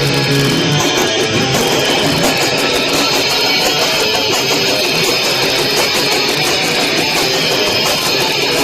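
A live band playing loud, fast distorted electric guitar music, recorded on an overloaded microphone so the sound is heavily clipped and smeared.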